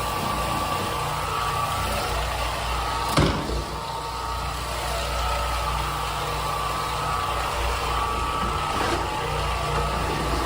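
Floor-cleaning machine running steadily on a wood floor, a constant motor hum with a high whine over it, and a single knock about three seconds in.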